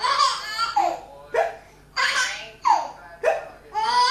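A baby laughing in repeated short bursts at an adult's fake hiccups, with the sharp, sudden hiccup sounds falling between the giggles.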